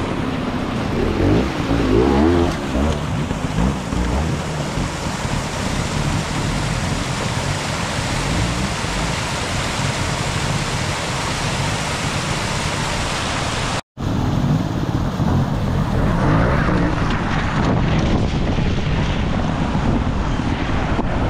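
A flooded beck rushing over rocks, with wind on the microphone, and a trials motorcycle engine revving up and down as the bike is ridden up through the water. The sound briefly cuts out partway through.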